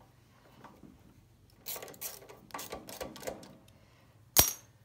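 Socket ratchet clicking in three short runs as bolts are tightened down, then a single sharp clack near the end.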